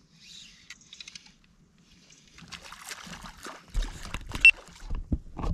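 Handling noises on a fishing kayak: a run of sharp knocks and rattles with low thumps against the hull and small water splashes, starting about halfway through and loudest in the second half, with a brief squeak near the end.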